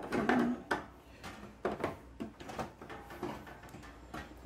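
Blue plastic filler cap being twisted on a diesel heater's plastic fuel tank: a series of short clicks and scrapes of plastic on plastic. The cap is not catching the thread and does not lock.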